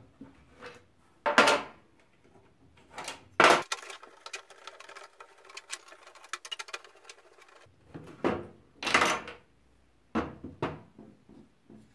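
Screwdriver and hands working the plastic locking clips of a metal drawer, a series of sharp clacks, scrapes and knocks, the loudest about three and a half seconds in, with small clicks between, as the clips that lock the front plate are worked loose.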